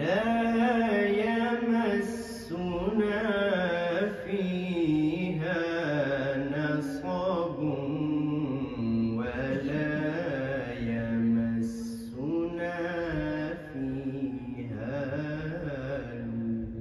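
A man reciting the Quran in Arabic in the melodic tajweed style, holding long, ornamented notes that rise and fall, in several long phrases with short pauses for breath between them.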